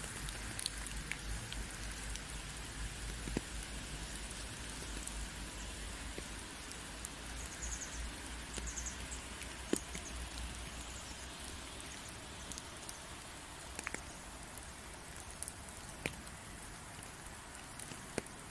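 Steady rain falling on a wet, leaf-covered path, an even hiss with scattered individual drop ticks. A faint low rumble underneath fades out about two-thirds of the way through.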